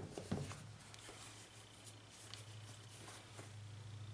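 Faint handling noise of a sneaker being picked up off the floor and turned over in the hands: a couple of soft knocks in the first half second, then light scattered rustles and ticks, over a low steady hum.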